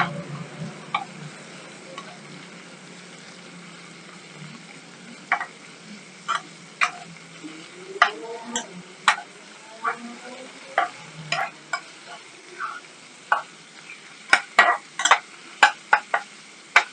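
Diced meat and garlic sizzling in a frying pan as a spatula stirs them, with a steady faint hiss and sharp taps and scrapes of the spatula on the pan, sparse at first and coming thick and fast near the end.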